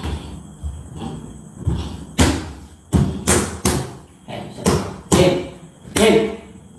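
An uneven run of about seven loud thuds and slaps over a few seconds, the hits coming closest together in the middle.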